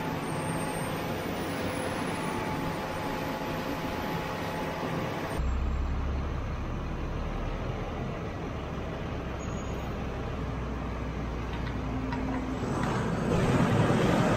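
Tractor engine running steadily while it packs silage. About five seconds in, the sound cuts to a deeper, heavier engine drone from a loader tractor, which grows louder near the end.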